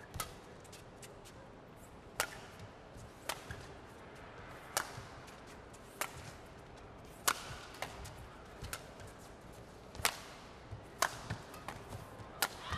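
Badminton rally: a shuttlecock struck back and forth by rackets, a sharp crack of the strings about every second or so, roughly ten hits in all, over a steady low background.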